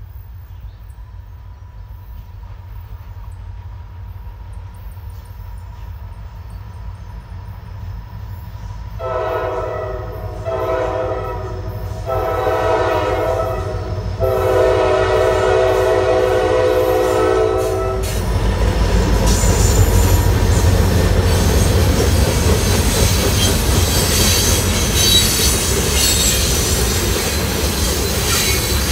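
A loaded coal train pulled by EMD six-axle diesel locomotives approaches a grade crossing. A low diesel rumble builds, then the locomotive air horn sounds four blasts, the last held longest, starting about nine seconds in. The locomotives pass and the loaded coal hoppers roll by with heavy wheel rumble, clatter and high-pitched wheel squeal.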